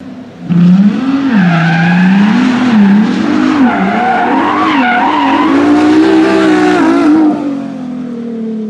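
A car engine revving up and down with tyres squealing. It starts about half a second in and fades away over the last second or so.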